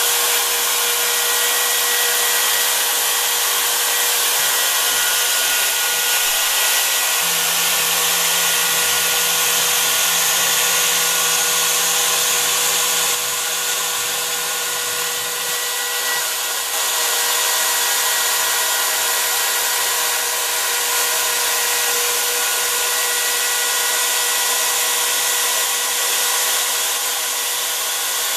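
Handheld router serving as the spindle of a home-built CNC machine, running steadily with a high whine and hiss while it machines a white door-trim block.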